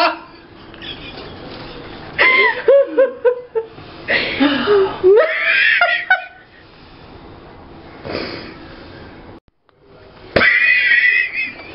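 Bursts of helpless laughter, about two seconds in and again about four seconds in, with a high-pitched squealing peal near the end.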